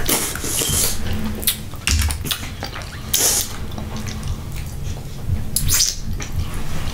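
Spoon and fingers digging in a glass bowl of seasoned sauce: wet splashing and dripping in irregular short bursts, a few of them louder.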